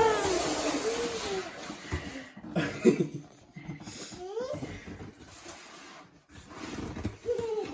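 A baby's short squeals and coos, several separate rising-and-falling calls, with a few soft knocks.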